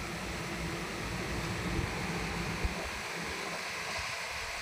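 Steady background hiss, with two faint clicks about two and three seconds in as the plastic phone clamp and head of a tripod selfie stick are handled.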